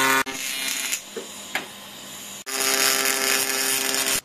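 Electric welding arc buzzing steadily as a steel-and-aluminium motor mount is welded onto an e-bike frame. The buzz stops shortly after the start, leaving a quieter hiss with a couple of faint ticks, comes back at about two and a half seconds, and cuts off suddenly near the end.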